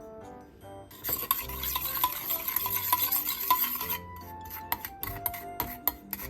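Food sizzling in a frying pan, starting about a second in and stopping about three seconds later, then a spatula or utensil clicking against the pan several times as the food is stirred.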